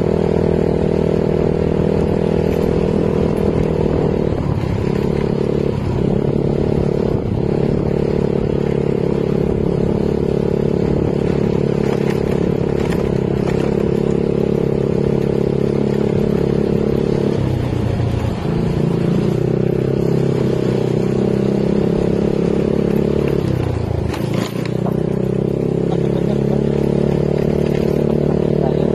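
Small motorcycle engine running steadily while riding, with its note dropping briefly several times as the throttle eases.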